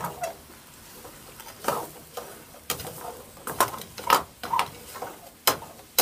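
Metal ladle stirring thick curry in a stainless steel pan, scraping through the sauce with irregular sharp clinks against the pan. The loudest clinks come about four and five and a half seconds in.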